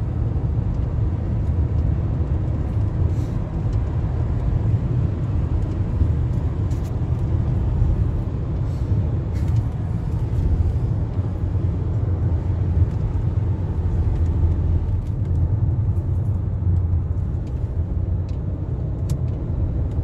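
A car driving, heard from inside the cabin: a steady low rumble of engine and tyres on the road, unchanging throughout.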